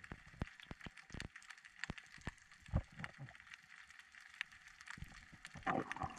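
Underwater crackling: scattered faint clicks and snaps, with a louder rustling noise near the end.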